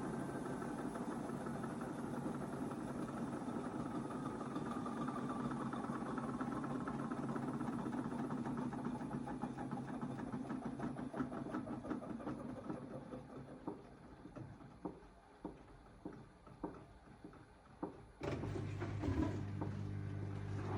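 AEG 8000-series washing machine drum running down from speed, its motor whine slowly falling. Then, once the drum is turning slowly, it knocks about six times at irregular spacing, and a steady low hum starts abruptly near the end. The knocking is the fault that comes back when the drum slows and goes at high rpm; it is not from the detergent drawer.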